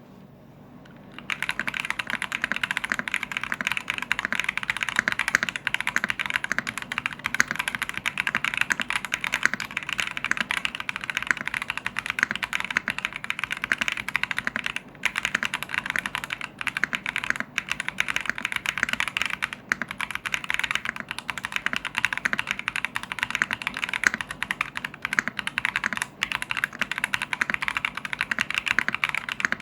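Fast, continuous typing on a VortexSeries VX7 Pro mechanical keyboard fitted with Philikey Fei Yellow switches, a quick stream of key clacks that starts about a second in and pauses only briefly a few times.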